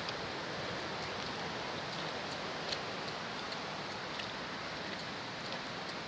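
Steady rushing of water from a waterfall, with scattered light ticks of footsteps on the leaf-littered forest trail, one sharper about halfway through.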